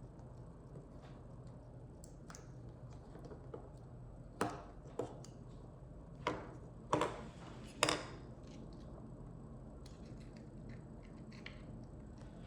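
Five sharp clicks and taps, about four to eight seconds in, from small hard objects being handled, over a faint steady low hum.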